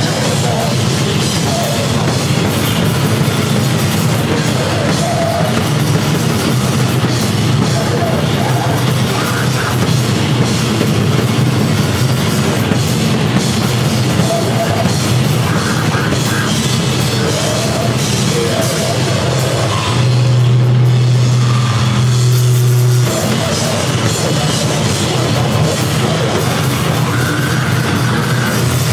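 Live grindcore band playing loud and fast: drum kit pounding under a heavily distorted bass, with noise filling the whole range. About two-thirds of the way in, a single low note is held for about three seconds and is a little louder, then the full din resumes.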